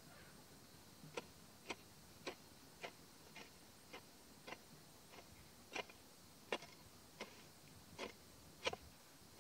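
Metal hoe blade chopping into grassy soil in a steady run of short, sharp strikes, a little under two a second, starting about a second in.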